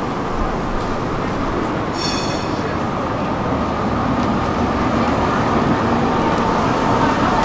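Tatra T3 tram standing at a stop with passengers boarding. A short high-pitched beep sounds about two seconds in. From the middle on, a steady electrical hum from the tram's equipment runs over street and crowd noise.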